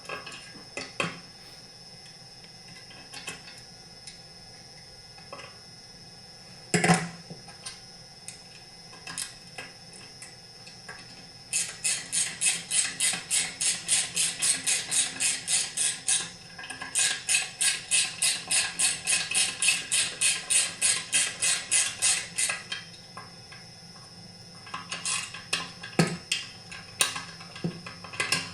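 A hand ratchet clicking in two long, even runs of about four clicks a second, driving in the screws that hold the chainsaw's fuel tank, with scattered knocks of tools and parts before and after.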